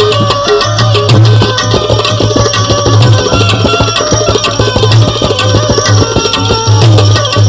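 Instrumental passage of a live Gujarati devotional bhajan (santvani): tabla playing a dense, driving rhythm under steady melodic instrument lines, with no singing.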